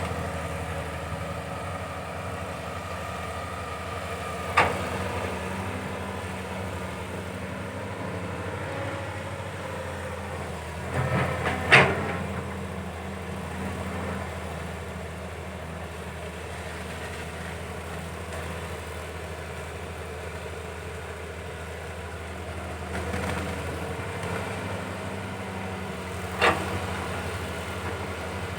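Caterpillar 320 hydraulic excavator's diesel engine running steadily while it digs, with sharp knocks from the machine about four seconds in, a short cluster of them around the middle, and one more near the end.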